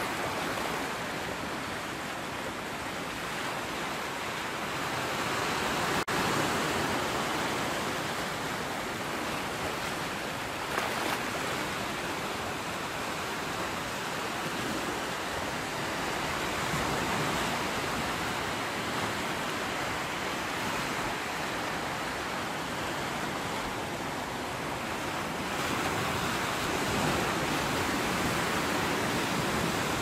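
Sea surf washing on the shore: a continuous rushing noise that swells and eases gently over several seconds, with one brief click about six seconds in.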